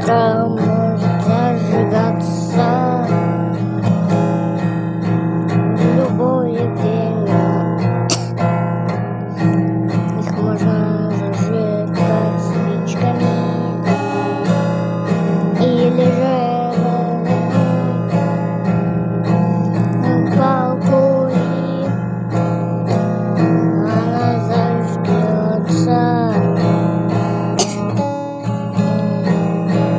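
Music: strummed acoustic guitar with a wavering melody line over it, at a steady loud level.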